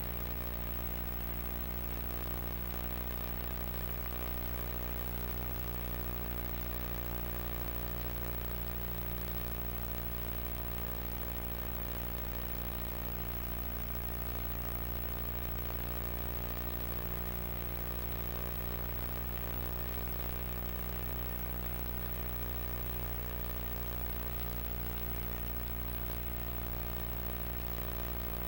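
Steady electrical mains hum and buzz from the recording chain: an unchanging low drone with many evenly spaced overtones, under a constant hiss.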